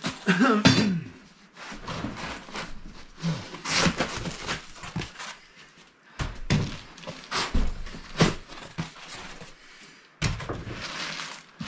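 Unpacking noises: foam packing inserts and plastic wrap scraping and rustling against a cardboard box, with several dull thunks as a heavy inverter is shifted inside it.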